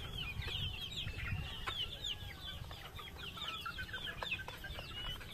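A flock of month-old gamefowl chicks peeping: many short, high, overlapping calls, each dropping a little in pitch, keep on without a break over a low rumble.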